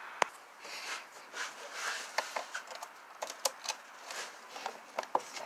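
Hands working on plastic engine-bay parts: rustling with scattered sharp clicks and taps, the sharpest about a quarter second in.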